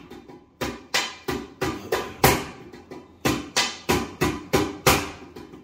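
A steady hand-struck percussion beat, about three sharp strikes a second, each ringing briefly, kept up as the rhythm for a folk song.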